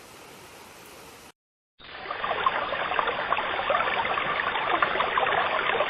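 A faint steady hiss that stops just over a second in. After a short gap, a louder, steady rush of running water with fine crackle starts.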